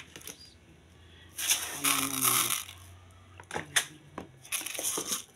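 Rustling and a few sharp clicks from objects being handled, with a short low hum of a voice about two seconds in.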